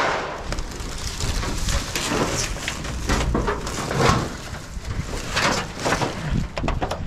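Corrugated tin sheets and boards being lifted and flipped over in a pile: irregular metallic clanks, knocks and scrapes, with rustling.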